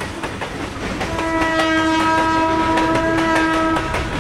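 Train horn sounding as the train runs along the track. One held blast starts about a second in and stops shortly before the end, over the rumble and regular clicking of the wheels on the rails.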